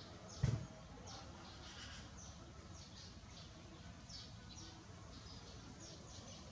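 Domestic chicks peeping repeatedly, a run of short, high, falling peeps. One dull thump about half a second in.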